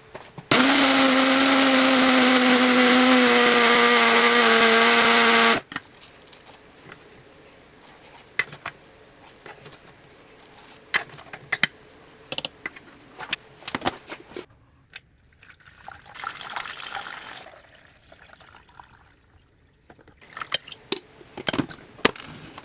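A small high-speed kitchen appliance motor runs loudly for about five seconds, its pitch dropping slightly partway through, then cuts off suddenly. Scattered clicks and knocks of kitchenware being handled follow, with a brief rushing noise about two-thirds of the way in.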